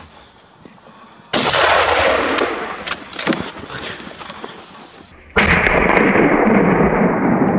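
Two gunshots at wild boar. The first comes about a second in, its echo rolling off over several seconds. The second comes about five seconds in and stays loud to the end.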